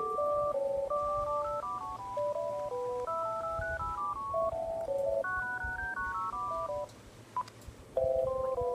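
Uniden DECT 6.0 1580 cordless phone handset playing a ringtone melody of electronic beep notes, several at once. The tune stops about seven seconds in, a click follows, and the next ringtone starts about a second later.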